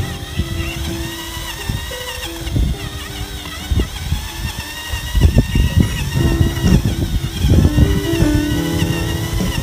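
Handheld electric mechanical stirrer running in a bucket of liquid soap solution, its motor whine wavering in pitch while the paddle churns the foamy liquid.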